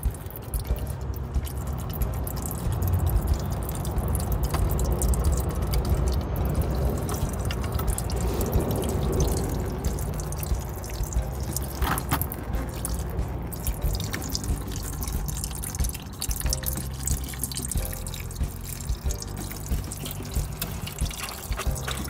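Liquid dripping and trickling, with many small clicks.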